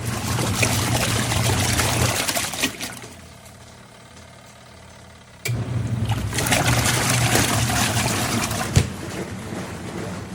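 Wash tub of a portable twin-tub washing machine agitating a load: a motor hum with water sloshing and splashing, which stops about two seconds in and starts again abruptly a few seconds later, as the wash motor pauses and restarts. A single knock near the end.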